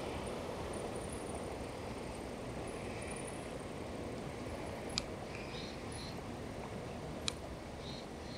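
Steady outdoor background noise, with two sharp clicks about five and seven seconds in from a hand working the controls of a camera on a tripod.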